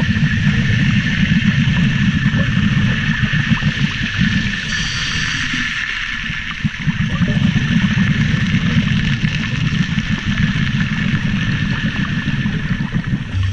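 Underwater noise picked up by a camera in shallow water: an unsteady low rumble of water surging around the camera, with a steady hiss and a faint high tone above it.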